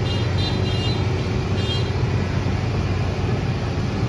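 Diesel engine of a heavy construction machine running steadily under load during a lift, with a couple of faint high-pitched whines in the first two seconds.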